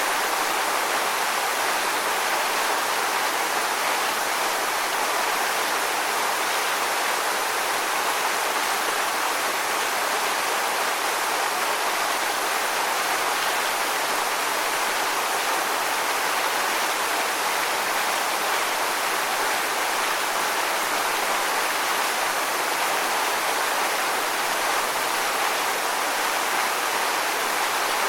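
Steady rushing of falling water: a waterfall's constant wash of noise, even and unchanging, with little low rumble.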